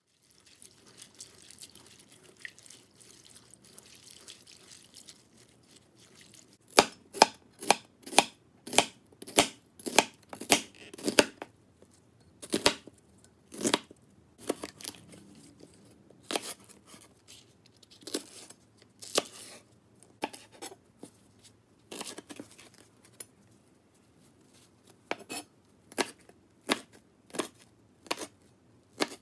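Chef's knife slicing onion and perilla leaves on a cutting board: sharp knife strikes on the board, in quick runs of about two a second with gaps between them. Only a faint rustle comes before the cutting begins, several seconds in.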